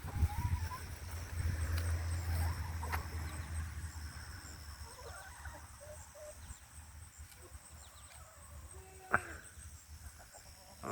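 Farmyard ambience: scattered faint calls from farm animals and birds, with a sharper call about nine seconds in. A faint, regular, high insect chirping runs underneath. A low rumble fades out over the first half.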